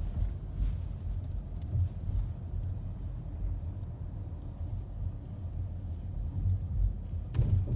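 A low, uneven rumble, with a louder knock near the end.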